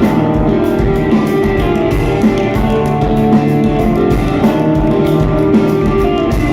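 Rock band playing an instrumental passage with no vocals: electric guitars holding chords over a steady drum-kit beat.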